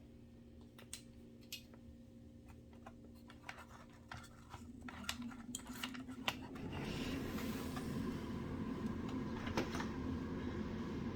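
Small sharp clicks and taps of a screw and tools handled while fastening a radio's antenna base. About five seconds in, a steady low whirring hum swells up and carries on, louder than the clicks.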